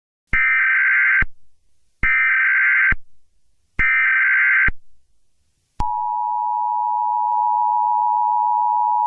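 Emergency Alert System SAME header: three short, identical bursts of warbling digital data tones, evenly spaced, each under a second long. About six seconds in, the steady two-tone EAS attention signal begins and holds.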